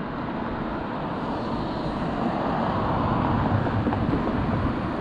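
Outdoor street noise with road traffic, a steady rush that swells a little toward the middle and eases off near the end.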